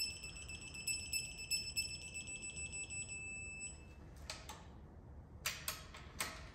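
Electronic torque wrench beeping with a steady high tone for about four seconds as a cylinder head bolt on an LQ4 6.0 L LS engine is pulled to its 75 ft-lb target, the beep signalling that the set torque is reached. The beep stops and is followed by a few sharp clicks.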